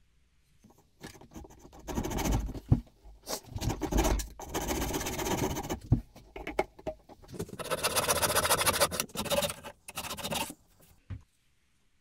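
Narrow-bladed saw cutting through a beech block, scraping in several long stretches with short pauses, starting about a second in and stopping about a second before the end.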